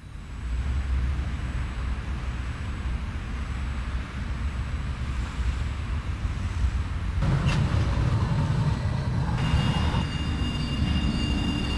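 Low rumble of a city tram and street traffic. About seven seconds in it turns noisier, with a single click, and from about nine seconds a steady high whine joins.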